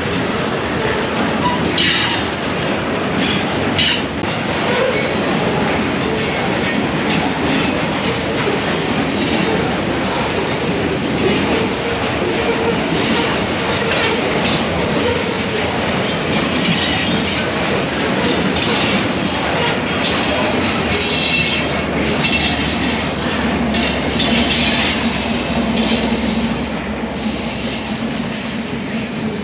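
A freight train's cars rolling past, with the steady rumble and clatter of steel wheels on the rails and brief high squeals from the wheels now and then.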